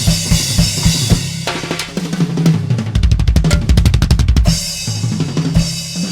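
Drum kit solo: kick and snare strokes under a wash of cymbals, then a fast roll of drum strokes about three seconds in.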